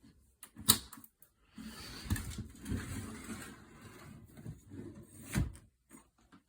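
The heavy aluminium side panel of a Power Mac G5 being fitted back onto the case: a sharp click, a few seconds of metal scraping and rattling as it slides into place, then a thump as it seats.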